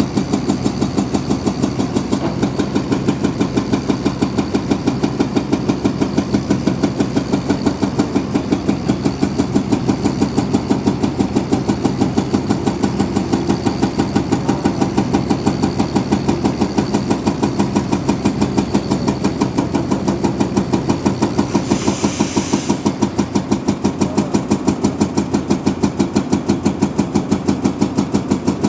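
Heavy diesel engine of a construction machine running steadily close by, with an even pulsing beat, and a short hiss about three-quarters of the way through.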